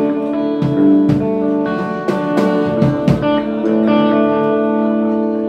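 Electric guitar playing chords that are struck and left to ring, changing every second or so, with a few sharp strokes among them.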